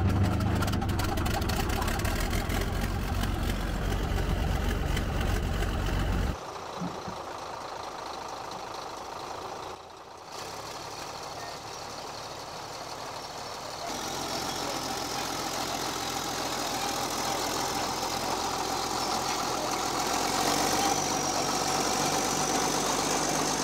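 A 1965 Caterpillar D8H bulldozer's six-cylinder diesel engine running steadily. It is loud and close for the first six seconds, then quieter and further off as the dozer moves over gravel, with a faint high whine in the later part.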